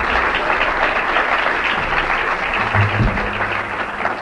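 Audience applauding a finished song, heard off an old reel-to-reel tape recording, with a short low note about three seconds in.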